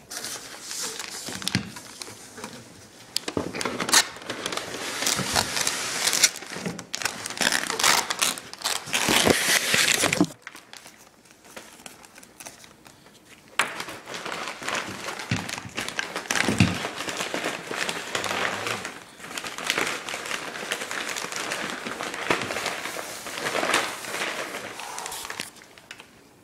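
Packaging being crumpled, crinkled and torn by hand as an exhaust is unwrapped, with a quieter pause about ten seconds in.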